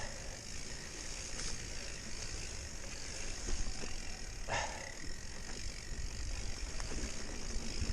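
Mountain bike riding downhill over rough trail: steady rolling and rattling of the bike with a constant hiss. There are scattered clicks and a brief falling squeak about four and a half seconds in.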